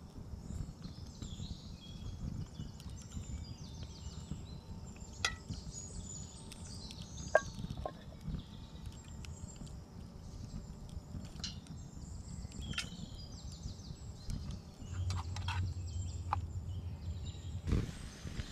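Small wood fire crackling in a wire camp grill stove, with scattered sharp cracks, the loudest about seven seconds in, over a steady low rumble of wind on the microphone.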